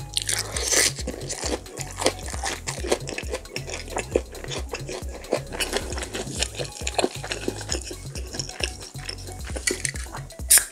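Close-up eating sounds: chewing and crunching of fried food with small clicks and rustles of a tissue. Near the end, a drink can is snapped open with a sharp crack and a hiss.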